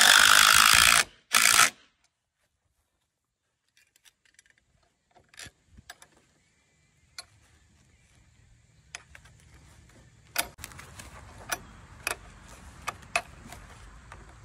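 Power drill running in two short bursts at a wooden corner post, a long one then a brief one, driving in a downspout bracket's bolt screw. Later come scattered sharp metallic clicks and rattles as the copper downspout bracket is handled and fitted onto the screw.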